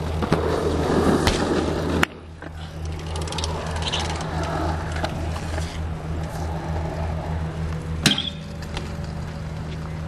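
BMX bike tyres rolling over concrete, with a steady low hum underneath. A sharp click comes about two seconds in and again about eight seconds in, and the sound changes abruptly at each.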